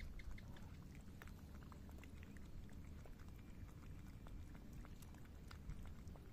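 Cats crunching dry kibble from dishes: faint, irregular crunching clicks.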